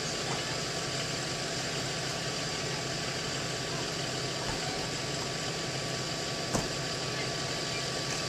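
School bus diesel engines idling with a steady low hum, and one short knock about six and a half seconds in.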